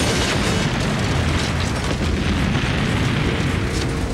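Cartoon explosion sound effect: a long, continuous blast with a deep rumble.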